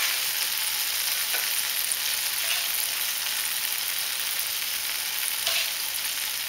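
Floured sea bass fillets sizzling steadily in hot oil and white wine in a frying pan. There are two light clinks of a serving spoon against a pan, about a second and a half in and near the end.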